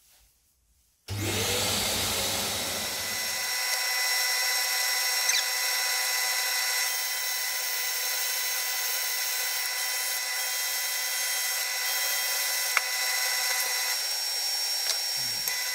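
Woodturning lathe running steadily with a tool working the spinning hardwood bowl, a steady machine whine under the noise of the wood being worked. It starts abruptly about a second in.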